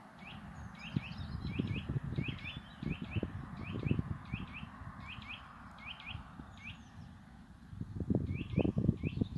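Vialis E-bell electronic level-crossing bell ringing in a steady repeating pattern of two quick falling strokes about every 0.7 s, warning that a train is approaching. Gusty wind rumbles on the microphone underneath.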